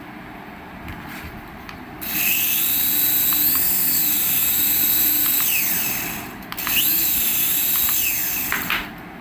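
A toy's small electric motor whining at high pitch. It starts about two seconds in and its pitch rises and falls as its speed changes. It cuts out briefly after about four seconds, then runs again until just before the end.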